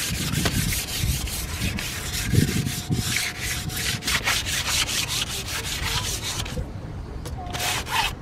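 Wooden table frame being sanded by hand, rapid back-and-forth scratching strokes that stop briefly about six and a half seconds in and then start again.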